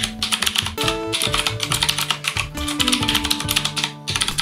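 Rapid typing on a mechanical keyboard with clicky Cherry MX Blue switches, a dense run of sharp key clicks with a couple of short pauses, over background music.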